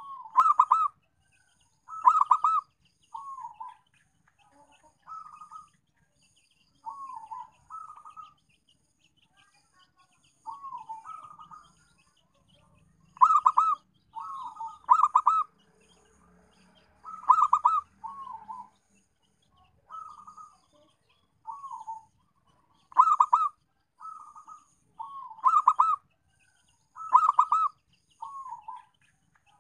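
Zebra dove (perkutut) cooing: short phrases of rapid, rolling coos repeated every second or two, some loud and some soft, with a few brief pauses between groups.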